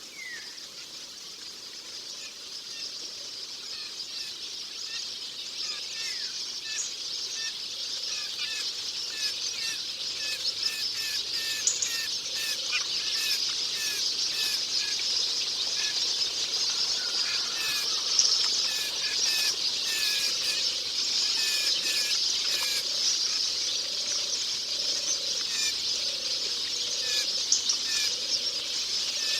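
Forest ambience: many small birds chirping in short, quick notes over a steady high-pitched chorus, fading in over the first several seconds and then holding steady.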